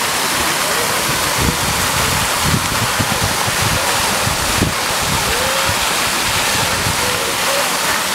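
Fountain jet spraying and its water falling back into the stone basin: a steady splashing hiss. Wind buffets the microphone in low, uneven rumbles through the middle.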